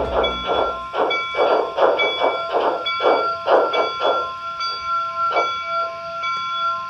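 Model steam locomotive's sound unit chuffing, about two to three chuffs a second, over thin steady tones; the chuffs stop about five seconds in.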